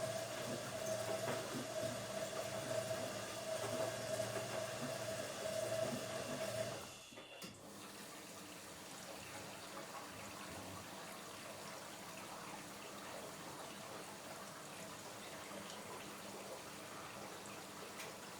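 Automatic washing machine: the motor runs with a steady hum and low rhythmic churning, then stops about seven seconds in. After it stops there is a steady, quieter rush of running water.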